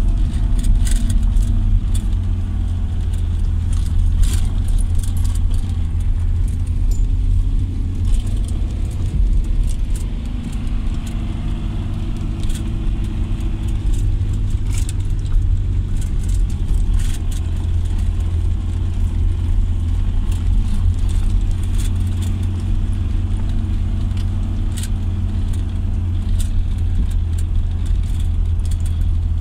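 Tofaş Doğan car driving, heard from inside the cabin: a steady low engine drone with frequent short rattles and knocks from the car's interior.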